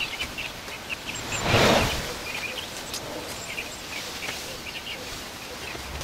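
Small birds chirping in the background, with a loud rush of noise lasting about half a second, about a second and a half in.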